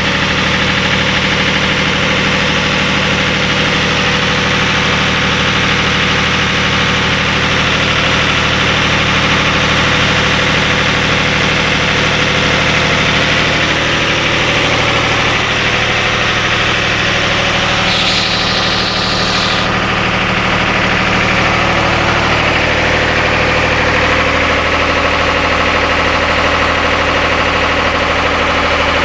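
Turbocharged 45 hp MWM diesel engine of a river boat running steadily under way, a loud continuous drone. A short hiss about eighteen seconds in.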